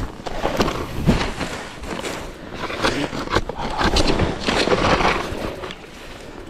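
Irregular crunching, scraping and knocking from footsteps and gear being handled on snow and ice, with no steady motor running.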